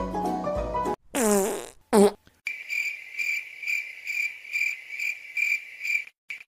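Prank fart sound: one long blast that drops in pitch, then a short second one just after. It is followed by cricket chirping at about two to three chirps a second, which cuts off near the end. Music plays briefly at the start.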